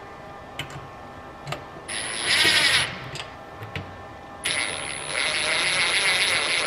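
Cordless driver running bolts into a steel seat bracket in two bursts: one about two seconds in, lasting about a second, and a longer one from about four and a half seconds on. Small metal clicks of bolts and washers come in between.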